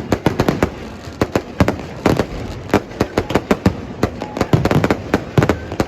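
Fireworks and firecrackers going off in a rapid, irregular string of sharp bangs, several a second, some overlapping.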